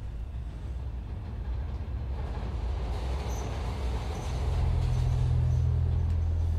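Subway train passing on elevated tracks, a steady rumble that grows gradually louder, with a deep steady hum coming in about four seconds in.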